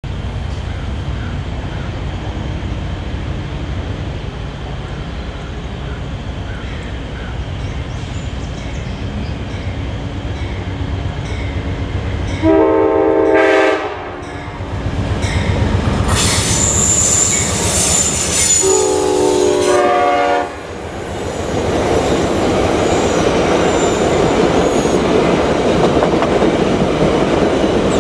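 An Amtrak P42 diesel locomotive approaches with a low rumble that slowly grows, then sounds two long horn blasts about six seconds apart. High wheel squeal begins between the blasts, and a loud, steady rush of wheel and car noise follows as the locomotive and the Talgo passenger cars pass close by.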